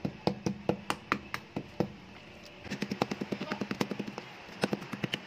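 Kitchen knife repeatedly striking raw pork belly on a wooden chopping board, pounding the meat to tenderise it. Strikes come about four or five a second, pause briefly about two seconds in, turn into a quicker run of lighter taps, then a few harder blows near the end.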